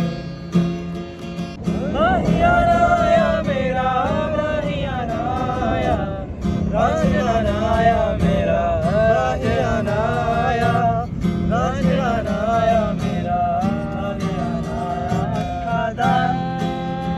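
Acoustic guitar strummed while male voices sing a slow Hindi-Punjabi song together, the sung melody rising and falling over the chords.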